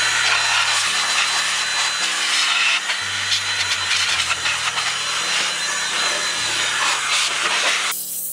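DataVac electric duster running at full speed, a loud steady rush of air with a high whine, blasting metal filings out of a steel computer case. It cuts off near the end.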